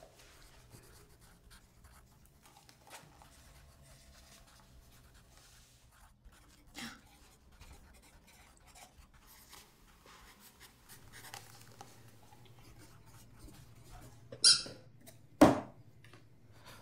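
Pencil scratching on paper as a word puzzle is filled in, faint and irregular. Near the end comes a brief scraping noise and then a sharp knock, the loudest sound.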